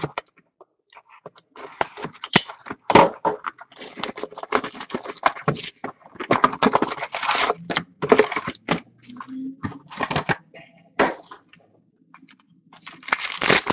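Hockey trading-card boxes and packs being handled and opened: an irregular run of crinkling, rustling and clicking noises that stops for a moment near the end and starts again.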